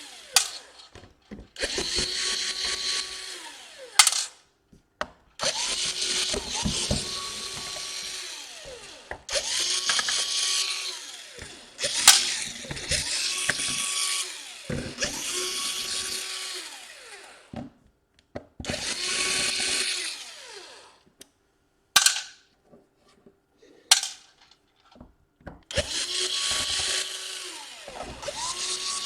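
Small electric screwdriver running in repeated short bursts on laptop case screws, each burst spinning up, holding a steady whine and winding down, with a few sharp clicks in the gaps between bursts.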